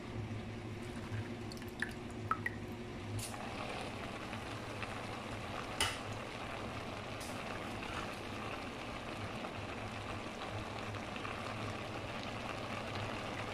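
Pot of pancit noodles and cabbage simmering on the stove with a steady bubbling hiss, which grows louder about three seconds in. A few light clicks of spoons against a plate come early, and one sharper clink of metal follows about six seconds in.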